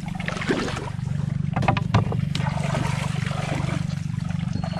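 A small motor runs with a steady low drone under splashing water. A few sharp knocks of bamboo crab traps being handled come about two seconds in.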